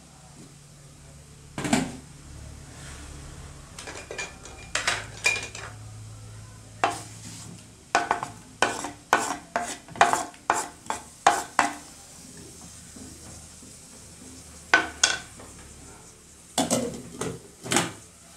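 Kitchen clatter at a cooking pot: a glass pot lid is handled and set back on, and a quick run of sharp knocks comes as a wooden utensil scrapes peeled garlic and shallots off a wooden cutting board into the pot. A low steady hum sits under it most of the way.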